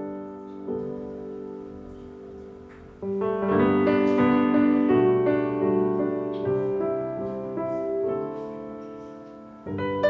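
Soft background piano music: slow sustained chords, with a new louder chord entering about three seconds in and another near the end.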